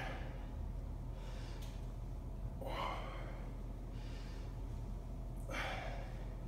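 A man breathing hard through repeated bodyweight barbell rows: three loud, forceful breaths about three seconds apart, with softer breaths between, paced to the pulls.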